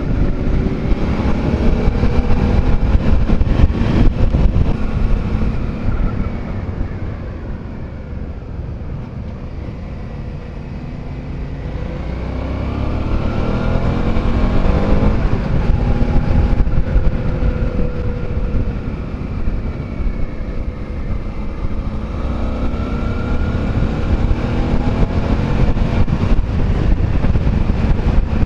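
Suzuki V-Strom's V-twin engine heard from the rider's helmet camera, the revs falling away about six seconds in and climbing again from about twelve seconds as the bike rides through a bend.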